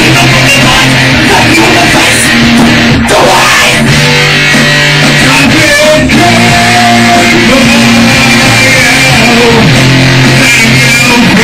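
Loud heavy rock music with electric guitars and shouted vocals into a microphone, near full volume throughout.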